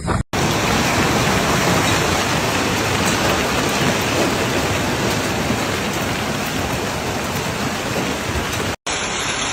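Heavy downpour of rain striking hard surfaces, a loud, dense, steady hiss. It breaks off for an instant near the end, and a similar downpour follows.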